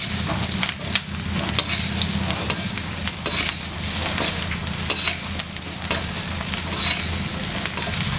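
A metal ladle stirring and scraping fried soya-chunk balls with shallots and coconut around a kadai of hot oil, with repeated clicks and scrapes of the ladle on the pan over a steady sizzle and low hum.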